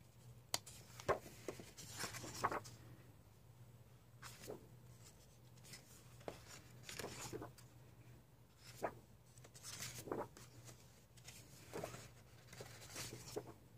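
Thick paper pages of a coloring book being turned and brushed flat by hand: faint, short rustles and slides, repeated many times over a low steady hum.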